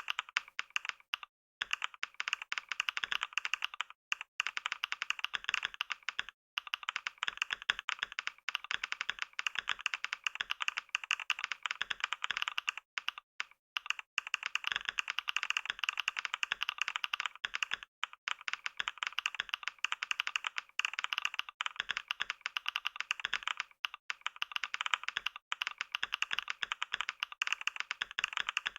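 Computer keyboard being typed on fast and without letup, a rapid stream of key clicks at a typing-test pace of about 88 words a minute, broken only by a few split-second pauses.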